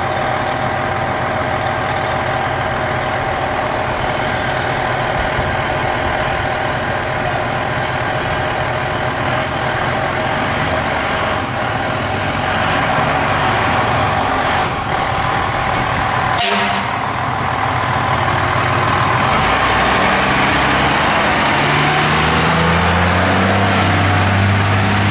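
2004 American LaFrance Eagle fire engine's diesel engine running steadily, with a sharp burst of air about two-thirds of the way through as the air brakes release. Then the engine revs up, its pitch rising in steps as the truck pulls away.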